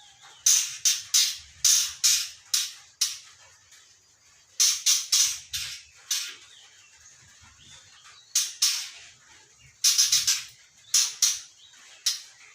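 Young white-rumped shama (murai batu), three months old, singing in clusters of short, sharp, loud notes, with pauses of a second or two between groups.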